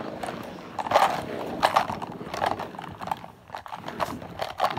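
Plastic marker caddy full of felt-tip pens being spun, the pens rattling and clacking against the holder in a series of irregular clattering bursts.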